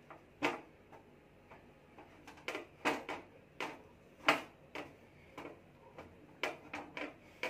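Hands patting and pressing a cotton cloth over boiled potato strips on a steel plate to blot out the water, making a dozen or so soft, irregular taps and knocks.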